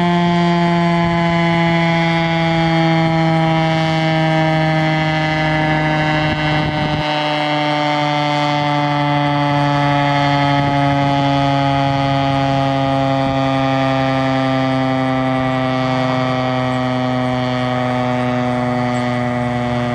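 Federal Signal STH-10 electromechanical outdoor warning siren winding down after its 30-second alert, its loud single tone sliding slowly lower in pitch.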